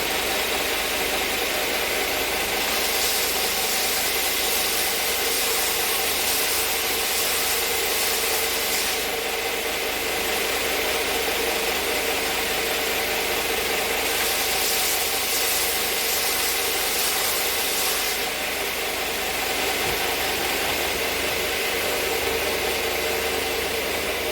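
Shopsmith Power Pro running as a belt sander with an 80-grit belt, its motor giving a steady hum. Hardwood pieces are pressed against the moving belt in two spells, a few seconds in and again near the middle, adding a harsh, high rasping.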